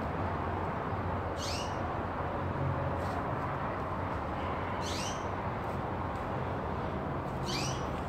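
A small bird calling three times, each a short high chirp that drops in pitch, roughly every two and a half seconds, over a steady low background hum.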